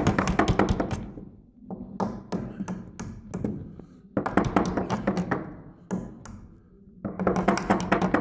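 Claw hammer driving a cable staple into a wooden wall stud to hold Romex cable: bursts of rapid light taps, with a few single strikes in the pauses between.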